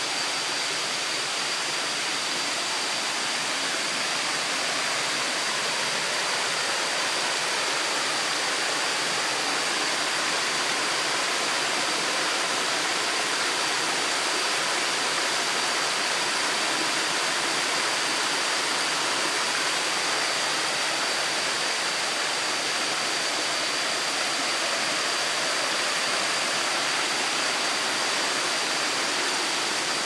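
Small waterfall cascades spilling over limestone terraces, giving a steady, even rush of water. A thin, steady high-pitched tone sits over the water.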